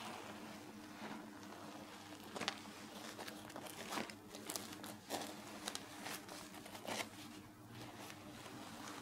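Hands pulling apart soft baked butter rolls: irregular light crackles and rustles from the torn crust and the baking paper beneath, over a faint steady hum.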